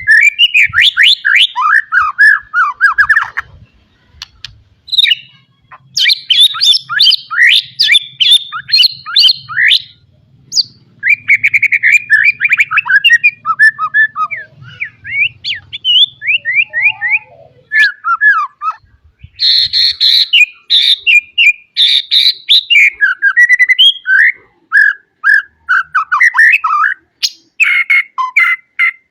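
White-rumped shama singing a rapid, varied song of quick gliding whistles and chattering notes, in long runs broken by brief pauses.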